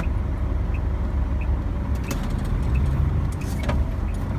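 Truck's diesel engine running, heard from inside the cab as a steady low rumble, with a few faint clicks.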